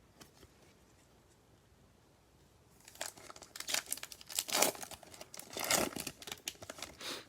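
A Panini Prizm basketball retail card pack's wrapper being torn open and crinkled, a dense crackling that starts about three seconds in and runs for about four seconds.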